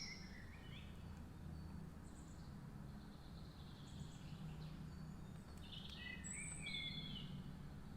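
Faint birds chirping in short, gliding calls, a few near the start, one about halfway and a small cluster late on, over a steady low hum.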